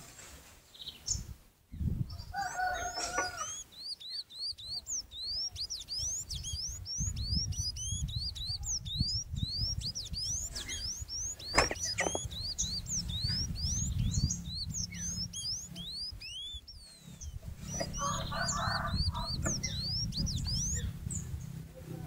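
Sayaca tanager singing a long run of quick, squeaky rising notes, about three or four a second, with a short break near the end. A lower call sounds near the start and again near the end, over a low rumble from about a third of the way in.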